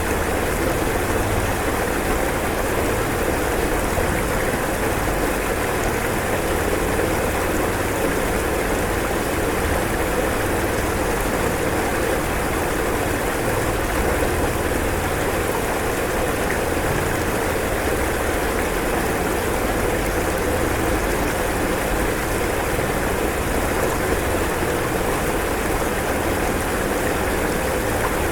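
Rushing floodwater: a steady, unbroken rush of water noise.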